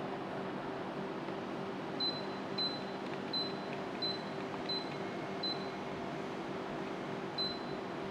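Daikin split air conditioner running with a steady airflow hiss and low hum, while the unit gives seven short high beeps: six in a quick series from about two seconds in, then one more near the end. The beeps are the indoor unit acknowledging remote-control button presses.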